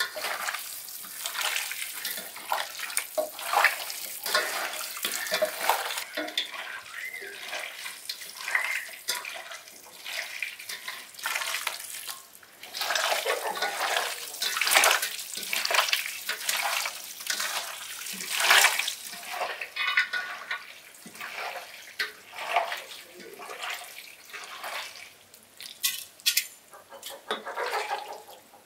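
Bare hands kneading and turning seasoned raw beef chunks in an enamel bowl: irregular wet squelching and slapping of meat. Near the end come a few sharper knocks.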